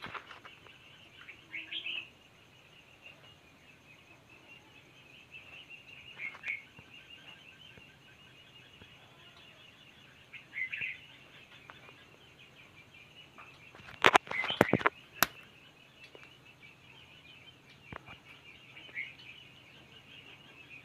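Red-whiskered bulbul nestlings cheeping, a steady high chatter with louder single calls every few seconds. A quick cluster of sharp knocks or clicks comes about two-thirds of the way through and is the loudest sound.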